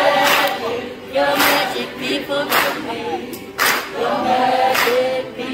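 A group of voices singing a Māori whakangahau song together, with a sharp clap about once a second keeping the beat.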